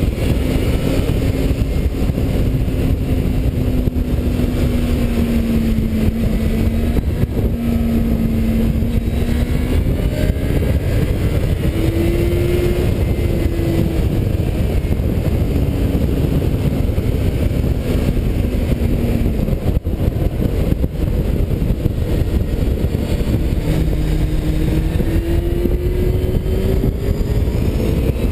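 Motorcycle engine heard from an onboard camera while riding, its pitch rising and falling with the throttle through the bends, over a steady rush of wind and road noise.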